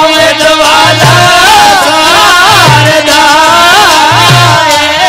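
Rajasthani folk devotional music: deru hourglass drums struck with sticks in a repeating pattern of deep strokes, under a wavering, gliding melody line and a held drone.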